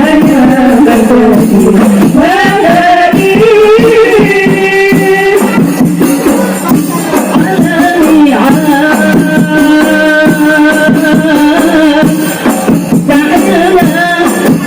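Qasidah song: a voice sings a melody in long held, wavering notes over a busy beat of rebana frame drums.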